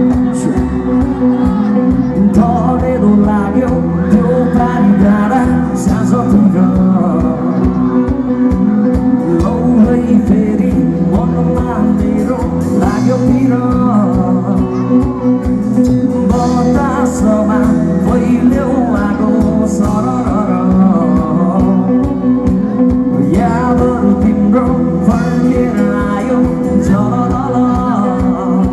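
A live band plays a song with a man singing lead, backed by acoustic and electric guitars, keyboard and drum kit, amplified through a stage PA.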